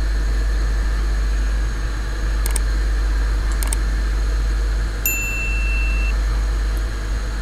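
Steady hiss over a low hum, with two soft clicks and then a single bright ding about five seconds in: the sound effect of an on-screen subscribe/like button animation.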